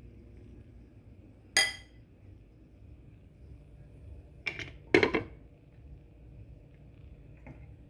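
Kitchenware clinking: a sharp ringing clink, then a glass pot lid knocking twice against a stainless steel pot about half a second apart, and a faint tap near the end.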